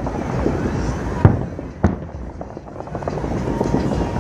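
Fireworks exploding: two sharp bangs about half a second apart, a little over a second in, over a steady din of smaller pops.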